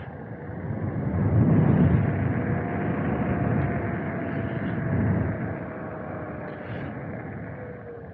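Vehicle and road noise: a steady rushing rumble with a faint hum, swelling about one to two seconds in and again around five seconds.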